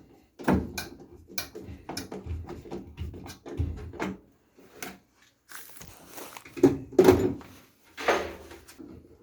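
Irregular knocks, clicks and rattles of furnace panels and parts being handled, with a louder cluster of knocks about seven seconds in.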